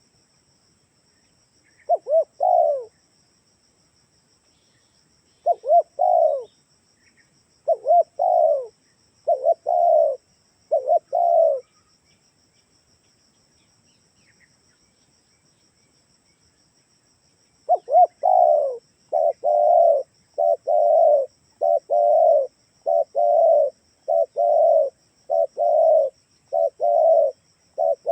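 Spotted dove cooing in short phrases of two or three coos: a few scattered phrases, a pause of several seconds, then a long run of phrases repeated about once a second near the end.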